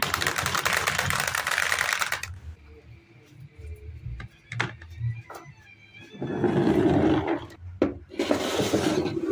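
Marbles pouring off a wooden track and clattering into a toy dump truck's plastic tipper bed, a dense rattle for about two seconds. A few sharp clicks follow, then two more bursts of rattling near the end.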